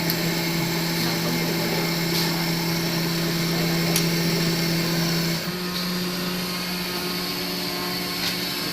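CNC machine motor running with a steady hum that shifts slightly in pitch about five seconds in, with faint clicks over it.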